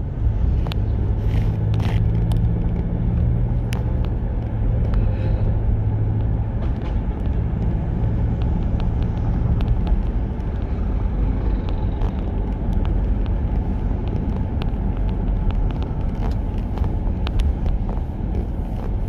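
Engine and road noise of a moving vehicle, heard from on board: a steady low rumble with an engine hum through the first half, and scattered light clicks and rattles.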